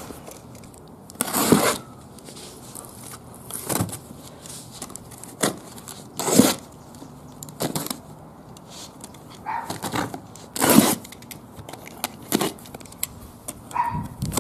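Packing tape on cardboard shipping boxes being slit with a blade and pulled loose: a series of irregular scrapes and rips, with the cardboard rustling as it is handled.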